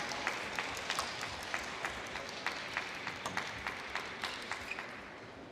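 Sparse applause from a small audience, the separate claps distinct, dying away over about five seconds.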